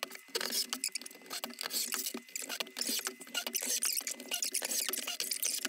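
Cordless drill driving wood screws down through pine boards: a dense, continuous run of rattling clicks with a thin motor whine behind it.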